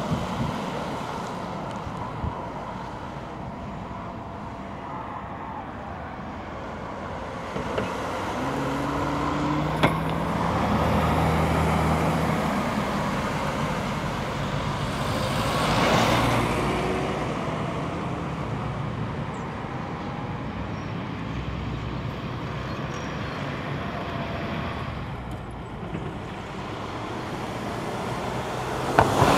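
Cars driving past on a road, chiefly a camouflaged Mercedes-Benz GLC prototype SUV: engine hum and tyre noise rising and fading as vehicles go by, with one loud pass about halfway through and another car coming up loud at the end.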